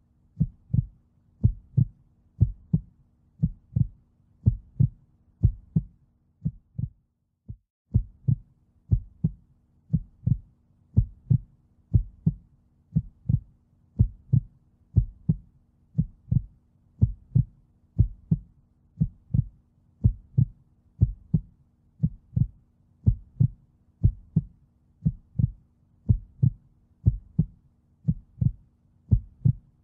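Steady low thumping pulse like a heartbeat, about two beats a second, over a faint steady hum. It breaks off briefly about seven seconds in, then carries on evenly.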